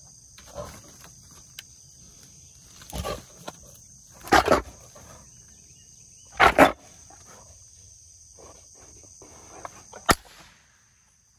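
Trapped wild boar hog giving a few short, loud huffs, the loudest about four and a half and six and a half seconds in, over a steady high drone of insects. A single sharp click comes near the end.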